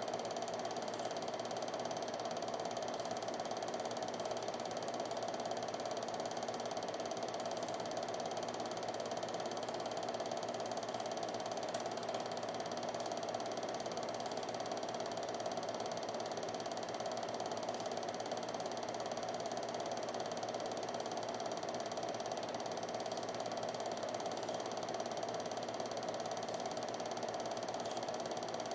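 Steady whir and light clatter of a home-movie film projector running, with an unchanging mechanical hum.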